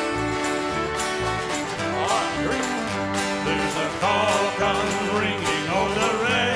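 Live bluegrass band playing, with banjo picking in the lead over strummed acoustic guitars and a steady bass beat. A wavering melody line comes in about two seconds in.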